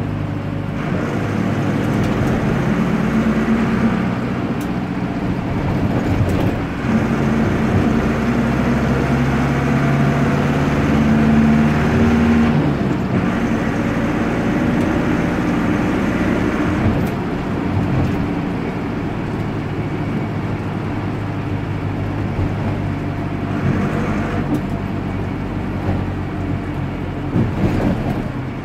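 Noisy air-cooled Deutz F4L912 diesel of an Otokar M-2000 minibus running under way, heard from inside the cabin, its pitch rising and falling with the revs several times.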